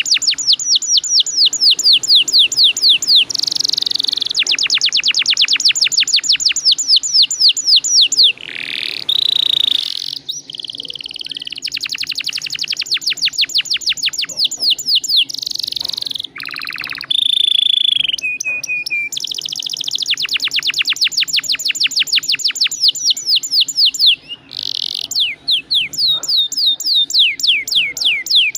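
Domestic canary singing long rolls: fast runs of rapidly repeated falling notes, broken twice by short varied phrases and held whistles before the rolls resume.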